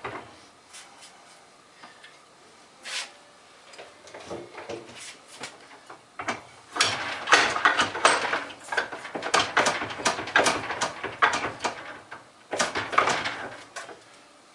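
Cast-iron parts of an antique woodworking vise knocking, clinking and scraping as they are handled and fitted together. A few scattered knocks come first, then a dense run of clanks and scrapes from about halfway in, and another short burst near the end.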